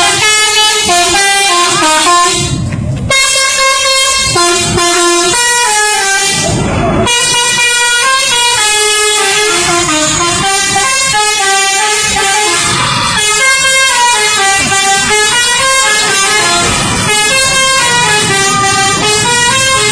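Bus telolet horn: a set of multi-tone air horns playing a tune, its notes stepping up and down in pitch, loud and nearly continuous, with short breaks about three and seven seconds in.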